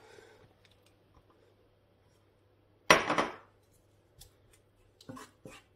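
Grated tomato tipped from a small bowl into a frying pan of oil: one short, loud wet splat and scrape about three seconds in, then a few light clinks of a utensil against the bowl and pan.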